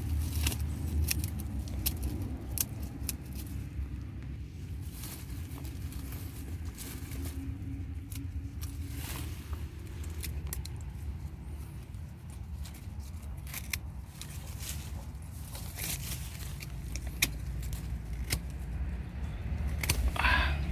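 Scattered sharp clicks, snaps and rustles from hands and tools working among bougainvillea branches, over a steady low rumble.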